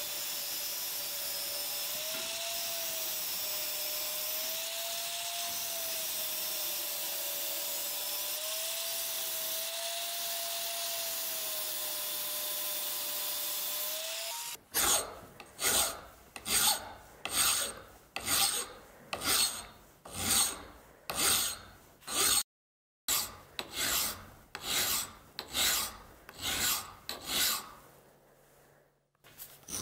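An angle grinder's cutting disc cutting saw-tooth notches into a steel knife blank, its motor pitch wavering slightly under load. About halfway through it stops, and a hand file rasps across steel in even strokes, a little over one a second, with two brief pauses.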